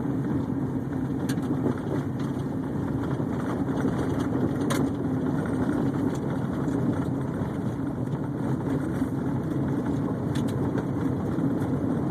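Steady engine and road rumble heard from inside a moving car, with a few faint light knocks.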